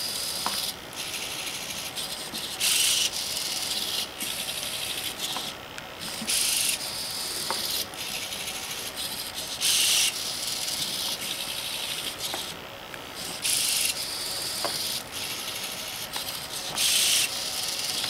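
Twelve hobby servo motors of a Meccano hexapod robot whirring as it walks. The whir swells into a louder buzz for about half a second roughly every three and a half seconds as a set of legs swings, with occasional faint clicks.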